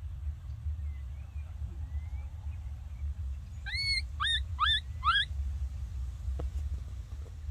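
Baby monkey giving four short rising calls in quick succession about halfway through, each sweeping up in pitch, over a low steady rumble.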